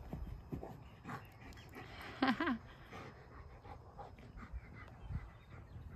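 German Shepherd panting, with a short high-pitched, wavering voice about two seconds in.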